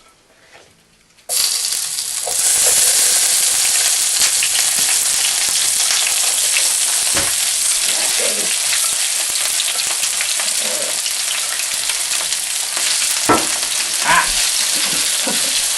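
Potatoes and onions frying in hot oil in a frying pan: a loud, steady sizzle that starts suddenly a little over a second in, with a few sharp clicks.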